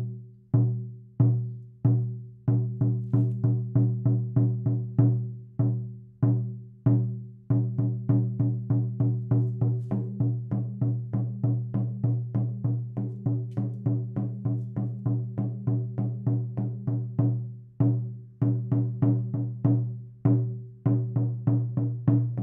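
A 20-inch goat hide frame drum (shaman drum) being struck, each hit giving a deep tone with ringing overtones. It opens with single, spaced strikes and short quicker runs, then settles about a third of the way in into a steady beat of about three to four strikes a second, with a couple of brief pauses near the end.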